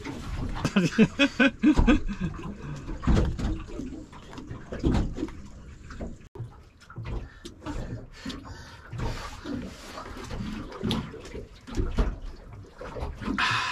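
Spoons clinking and scraping in bowls while people eat, with low murmured voices and water lapping against a boat hull.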